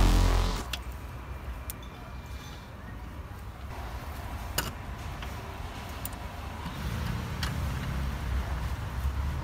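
Electronic music cuts off right at the start. Then a low steady rumble runs under about five light, sharp clicks of metal wheel parts being handled by hand at a car's front wheel.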